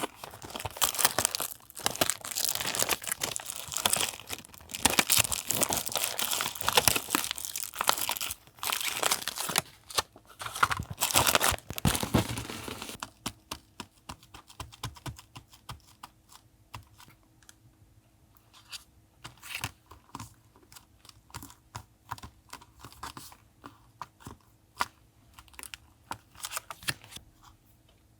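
Paper being handled: dense tearing and crinkling for about the first half, then much quieter scattered taps and light rustles.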